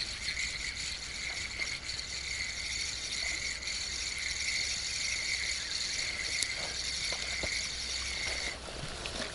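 Tsurinoya FS 2000 spinning reel being cranked at an even pace, a steady fine whirring rattle of the gears, reeling in a hooked chub; the winding stops about eight and a half seconds in.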